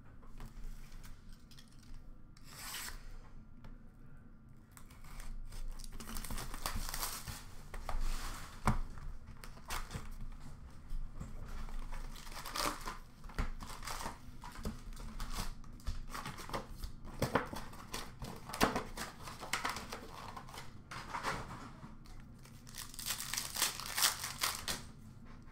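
Upper Deck hockey card packs and their box wrapping being torn open and handled: repeated ripping and crinkling of foil and plastic, busier from about six seconds in, with a few sharp clicks.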